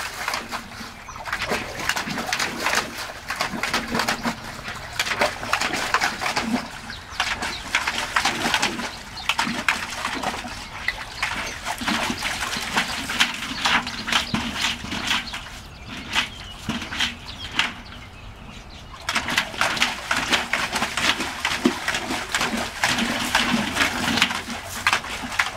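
Dogs splashing and sloshing water in galvanized metal tubs: a dense, irregular run of splashes that eases off for a few seconds about two-thirds of the way through, then picks up again.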